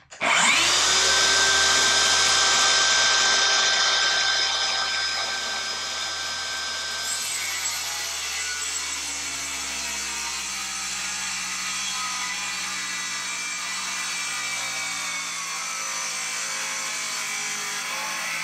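Electric power saw spinning up and cutting off the corner of a wooden slab, a steady high whine. Between about four and seven seconds in it grows quieter and its tone changes as the blade works through the wood.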